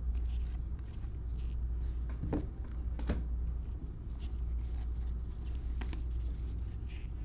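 Football trading cards being slid and flipped one by one in gloved hands: soft scratchy rustles of card on card, with a few sharper clicks, over a steady low hum.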